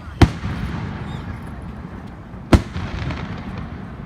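Fireworks bursting: two sharp bangs about two seconds apart, each trailing off in a short rumble.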